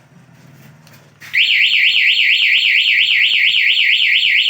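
Motorcycle remote alarm kit's siren, set off from the key-fob remote in its bike-finder mode, giving a loud warbling wail that sweeps up and down about four times a second. It starts about a second and a half in and stops abruptly.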